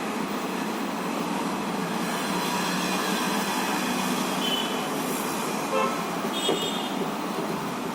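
Steady rushing background noise, with a couple of faint short high toots about four and six and a half seconds in.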